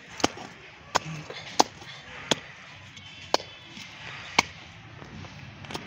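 A small hand digging tool stabbing into stony garden soil to dig a planting hole: seven sharp strikes, roughly one a second.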